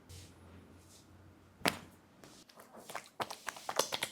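Sharp hand taps and slaps of a barber's head massage: one crisp tap a little under halfway, then a run of quick taps that grows denser toward the end.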